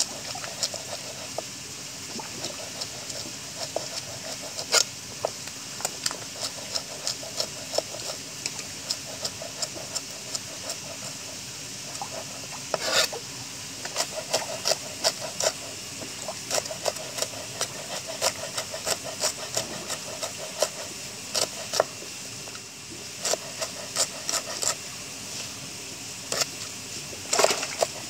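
Knife chopping green vegetable stems on a wooden block: sharp irregular chops, often several a second, in runs. Beneath them, a steady splashing of fish feeding at the water's surface.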